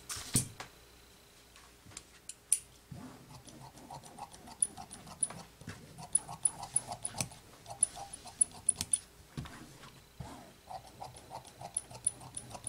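Large steel dressmaker's shears cutting through rayon fabric on a table: a steady run of snips, each with a small sharp click as the blades close. The snipping starts a few seconds in and stops briefly about two-thirds through before going on.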